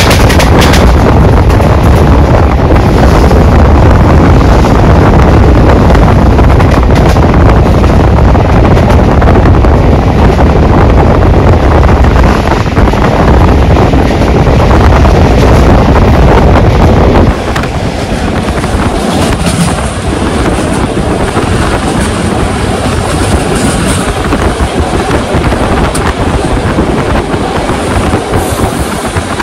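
Wind buffeting the microphone at an open window of a moving train, over the train's running noise on the rails. About two-thirds of the way through, the heavy low rumble drops away suddenly and the sound turns lighter.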